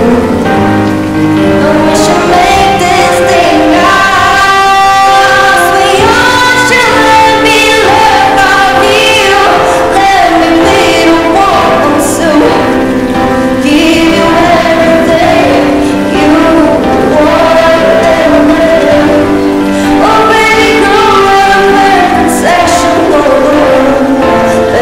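K-pop song with a female lead vocal singing over a full backing track, given an echoing, empty-arena style reverb.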